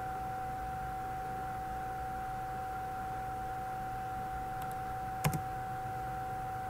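Computer mouse clicking: a couple of faint clicks a little past four and a half seconds, then a sharper double click a little past five seconds, opening a file. Under it, a steady electrical hum with a constant tone and hiss.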